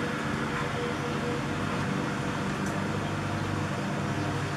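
Steady machine hum at an unchanging pitch, such as a fan, compressor or engine running in the background.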